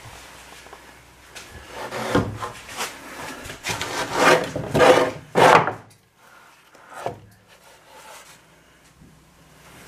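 A hand rubbing and scraping along a rough wooden board. There is a run of scraping swishes from about a second and a half in until six seconds, loudest just before the end of that run, then one shorter swish near seven seconds.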